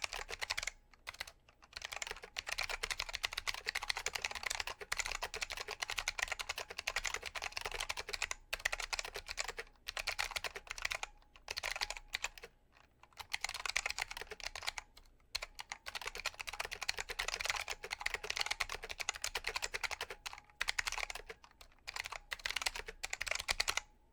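Fast typing on a KBParadise V60 Mini mechanical keyboard with Matias Click switches: a dense stream of sharp, clicky keystrokes in bursts with brief pauses between them. It stops at the very end.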